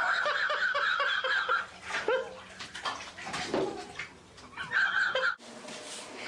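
Bathwater splashing and sloshing around a toddler in a filled bathtub, mixed with bursts of the child's high-pitched voice. The sound cuts off abruptly about five seconds in.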